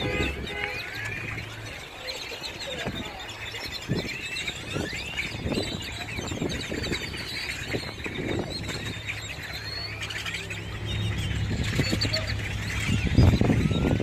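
A large flock of grackles calling all at once: a dense chorus of many overlapping rising and falling whistled calls. A low steady hum joins about two-thirds of the way through.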